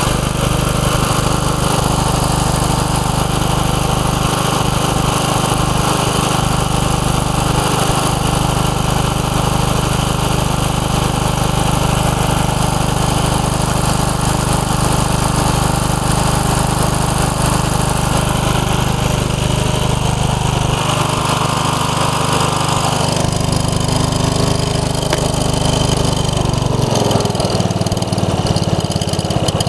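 The 15 hp OHV Briggs & Stratton engine of a 1990 Craftsman riding mower running steadily, freshly revived after hydrolocking. Its note changes about twenty seconds in and again near the end.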